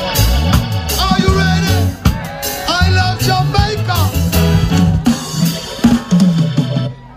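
Live reggae band playing, with drum kit and bass keeping the beat and voices singing over it; the music cuts off about seven seconds in.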